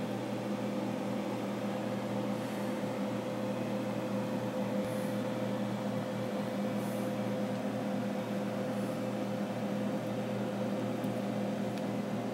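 Steady hum from a switched-on JBL UREI 6260 power amplifier at idle, a few steady low pitches over an even whirring noise.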